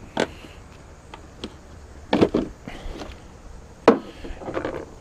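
A few scattered knocks and clunks, with the loudest two just after two seconds in and just before four seconds in, and a brief rustle near the end.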